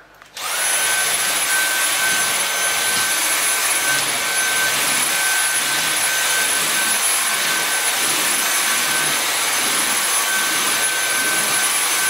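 Dyson V8 cordless stick vacuum switching on about half a second in and then running steadily: a high-pitched whine over the rush of its suction, with the motorised floor head on a wooden floor.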